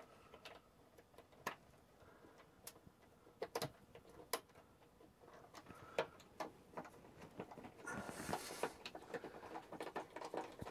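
Faint scattered clicks and rustling from insulated wires being handled and shifted into place, with a longer rustle about eight seconds in.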